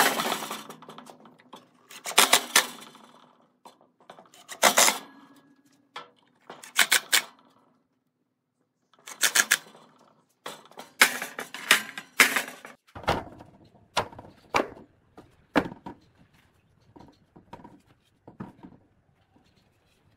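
Cordless impact driver rattling in short bursts of about a second, several seconds apart, driving screws through steel corner brackets into plywood. After about 13 seconds come several deeper wooden knocks and lighter taps as plywood panels are set down and fitted.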